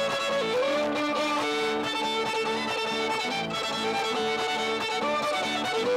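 Fiddle and guitar playing Greenlandic fiddle music: the fiddle carries the melody over guitar chords in a steady rhythm.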